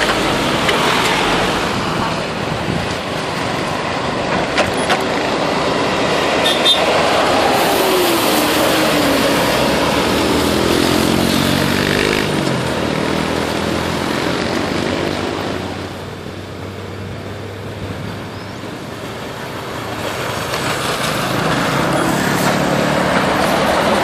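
Highway traffic passing: a tour bus, cars and motorcycles going by, with engine notes gliding in pitch as vehicles pass. The noise dips about two-thirds of the way through, then builds again.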